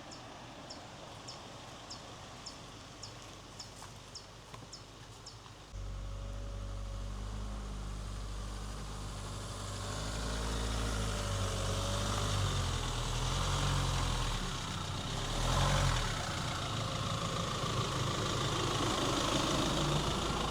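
Quiet outdoor background with high, regular chirping about two times a second, then about six seconds in the Rely R8 pickup's engine comes in abruptly and keeps running, getting louder from about ten seconds in as the truck drives on.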